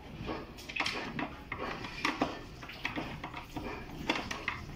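Scattered light clicks and knocks at an irregular pace: the clatter of hands handling a wall-type air conditioner's indoor evaporator coil.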